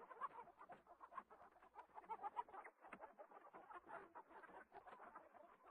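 Faint, busy chatter of bird calls, many short irregular chirps overlapping.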